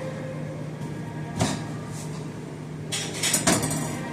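Kitchen handling sounds: a single hard knock about a second and a half in, then a short clatter of several knocks and clicks near the end, over a steady low hum.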